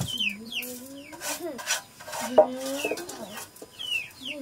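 A hen making repeated drawn-out calls while chicks give high, short, falling peeps, with the splash and slosh of water from a tilted pot. There is one sharp knock about halfway through.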